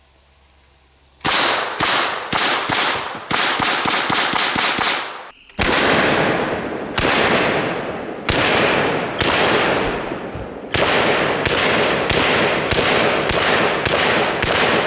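Thompson submachine gun in .45 ACP fired semi-automatically: a fast string of about a dozen sharp shots, then after a brief pause a second string of shots that starts slower and picks up speed, each shot ringing out before the next.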